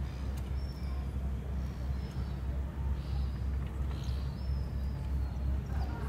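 Wind buffeting the microphone as a steady, pulsing low rumble, with a few faint, short bird chirps scattered through it.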